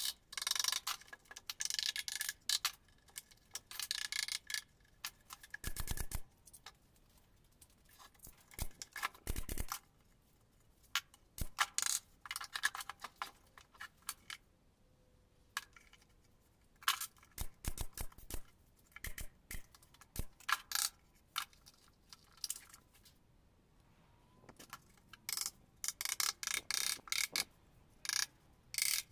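Utility knife scraping and shaving along the wooden joints of a speaker box in short, repeated strokes that come in clusters, with a few sharp knocks on the wood.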